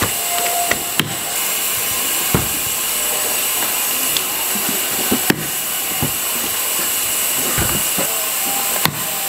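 A few sharp knife chops into coconuts, spaced a second or more apart, over a steady hiss.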